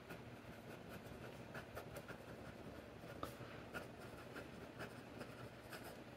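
Broad-nib Franklin-Christoph Model 46 fountain pen writing on grid paper: faint, irregular scratching of the nib with small ticks as the strokes are made.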